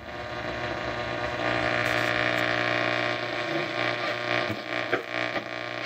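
1964 Ford Galaxie car radio coming up through its speaker with a steady electrical hum and hiss, swelling after a second or so, with a few soft clicks near the end as it is tuned before a station comes in.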